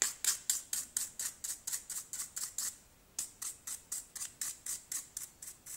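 Small brush scrubbing the inside of a phone's plastic back housing in quick back-and-forth strokes, about four or five a second, with a short pause about halfway through, to work dust and grime out of it.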